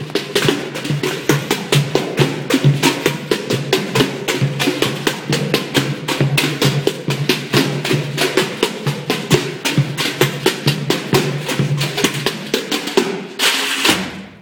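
Ensemble pail drumming: many players striking pails in a fast, dense rhythm, ending on a loud final hit about a second before the end.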